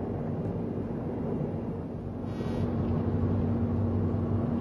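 Steady low rumble of an outdoor field recording, with a faint steady hum that grows a little stronger halfway through and a brief hiss a little past two seconds in.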